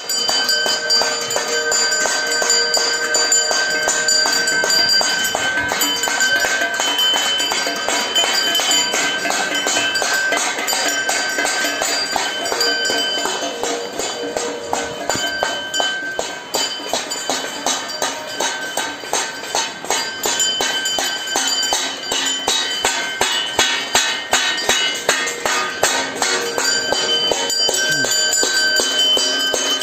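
A bell rung continuously with rapid, regular strokes, its ringing tones sustained between strikes.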